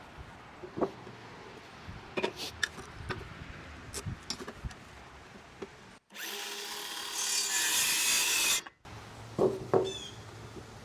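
Boards being handled with a few scattered knocks, then a cordless circular saw cutting through a 2x4 for about two and a half seconds, starting and stopping abruptly. A couple of wooden clunks follow near the end.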